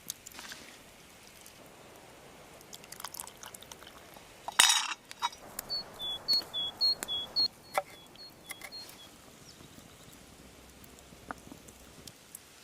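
Scattered small clicks and crunches, with one loud short rustling scrape about four and a half seconds in. It is followed by a bird singing a two-note phrase, high then low, repeated about six times over some three seconds.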